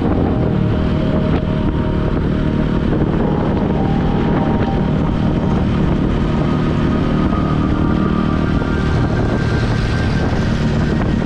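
A road vehicle on the move, with wind buffeting the microphone: a loud, steady rush of engine, road and wind noise.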